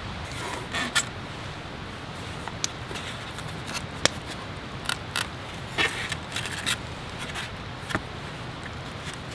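Chopsticks clicking and scraping against a metal plate, a wooden board and styrofoam trays as food is picked up and set down: scattered light clicks and short scrapes over a steady low background rumble.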